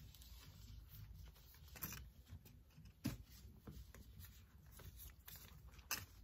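Faint rustling of a woven fabric bag strap being handled, with three light clicks, about two, three and six seconds in.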